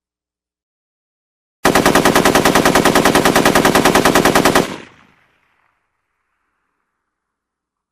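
Automatic gunfire sound effect: one sustained burst of about three seconds at roughly nine to ten shots a second, starting about a second and a half in and cutting off with a short fading echo.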